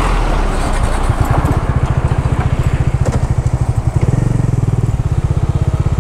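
Motorcycle engine running at a low idle with an even, fast pulsing beat, which grows a little louder and fuller about four seconds in.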